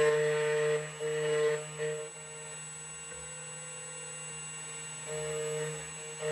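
Electronic key cutting machine running while it cuts a key blank: a steady hum with a higher motor tone that starts and stops every second or so as the carriage moves, and a brief hiss from the cutter in the first couple of seconds.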